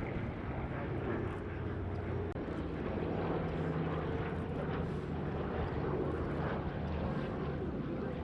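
Twin radial piston engines of Douglas C-47 / DC-3 transport aircraft running steadily as the aircraft fly past overhead, a continuous propeller-driven engine sound.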